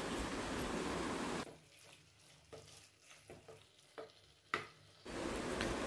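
Prawns in masala sizzling in a clay pot while a wooden spatula stirs them. The sizzle drops away for about three and a half seconds in the middle, leaving a few soft taps and scrapes of the spatula against the pot, the sharpest near the end of the quiet stretch.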